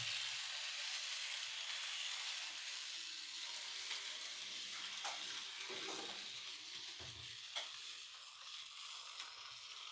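Small electric model locomotive running slowly on the layout's track, pushing cars into a siding: a faint steady whirring hiss that slowly fades, with a few light clicks.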